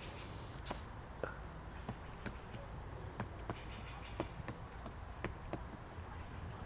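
Woodpecker pecking into a tree: faint, irregular single taps, roughly one every half second, rather than a fast drumming roll. A low steady rumble lies underneath.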